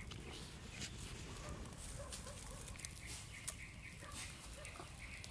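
Wood fire crackling under a stone cooking slab, with scattered sharp pops, and faint repeated bird calls from about two seconds in.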